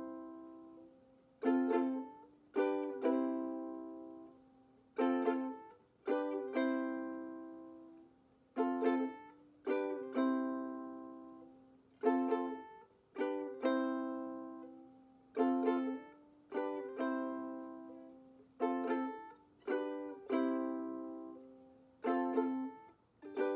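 Ukulele played with single down-strums, each chord left to ring and die away. The strums come in clusters of two or three every couple of seconds.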